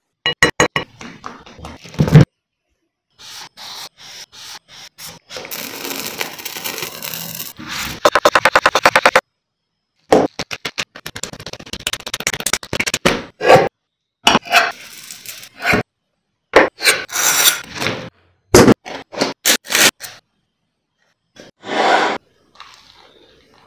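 A run of short, close-miked food-preparation sounds in quick cuts: thick peanut butter plopping into a bowl, knife scraping and spreading, a fast run of even knife strokes, and crisp scraping and cracking as the sandwich is assembled and cut on a wooden board.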